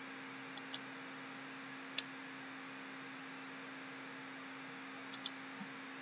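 Computer mouse clicking a few times, a quick pair, a single click, then another quick pair, over a steady low hum and hiss from the recording setup.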